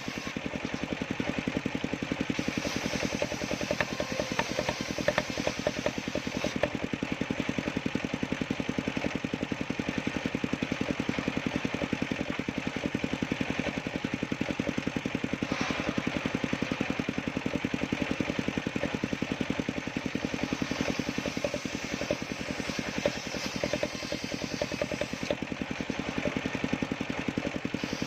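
Small engine of a homemade sawmill running steadily at an even speed, its firing pulses close and regular, with no break.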